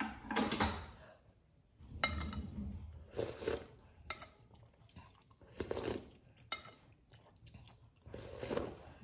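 Metal cutlery clinking against ceramic plates and rattling in a drawer in short separate knocks, with a sip of noodle broth from a spoon near the end.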